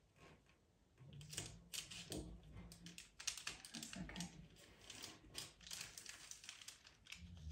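Faint rustling and crinkling of a sheet of tracing paper being lifted and laid over a pastel drawing, with many small sharp clicks and taps as it is handled.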